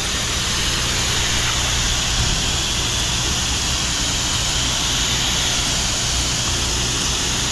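Gas-engine pressure washer running steadily, with the spray hissing from the gun as it downstreams sodium hypochlorite at low pressure. It is one unbroken, even noise with no change in pitch.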